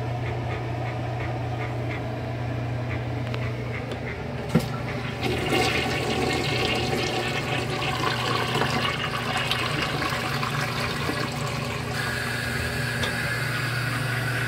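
Toilet flushing: a sharp click of the flush handle about four and a half seconds in, then rushing, swirling water in the bowl. The water sound turns into a steadier, higher hiss near the end.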